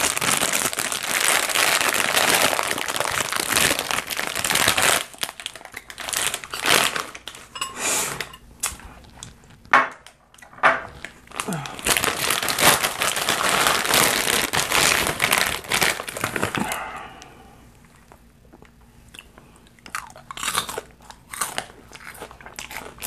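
Crinkling of a plastic Cracker Jack snack bag as it is opened and rummaged through, then close-miked crunching and chewing of the caramel-coated popcorn. The crinkling is dense for the first five seconds, then breaks into separate sharp crackles and crunches, and goes quieter for a few seconds before more crunching near the end.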